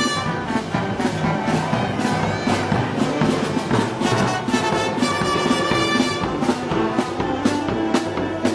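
Brass band music: trumpets and trombones playing a festival street march (pasacalle), with drum and cymbal strikes keeping the beat.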